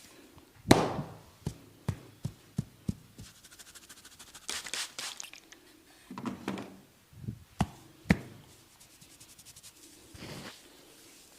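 Barber's hands working a head massage: a loud sharp strike under a second in, then five lighter strikes in quick succession. Two bursts of hands rubbing over hair and skin follow, then two more sharp strikes at about eight seconds.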